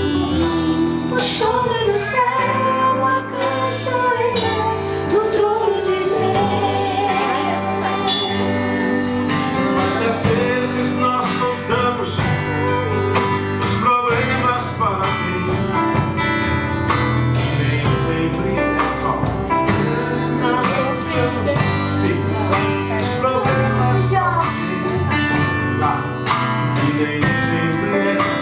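Music: a song played on guitar, with a melody line that wavers in pitch, sung or played, mostly in the first several seconds.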